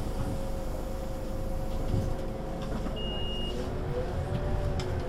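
Scania Citywide LE city bus (CK280UB) running, its diesel engine and drivetrain giving a low rumble under a steady whine that starts to waver up and down about four seconds in. A short high beep sounds briefly about three seconds in.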